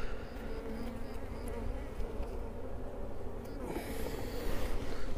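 Honeybees buzzing in a steady hum around a hive that is open for inspection.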